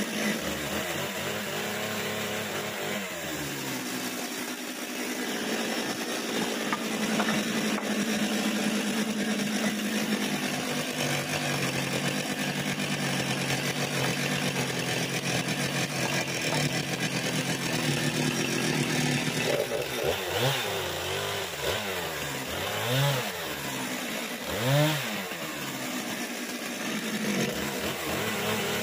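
Husqvarna chainsaw running and cutting through pallet boards, its chain freshly sharpened. Near the end the engine revs up and back down about three times.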